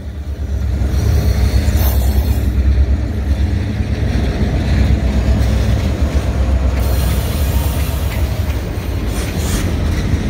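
Freight train passing at close range: the steady low rumble of two EMD diesel locomotives, an SD40-2 and a GP38, going by, with rail noise. In the later seconds, as the empty log cars follow, short clacks of the wheels over the rails come through.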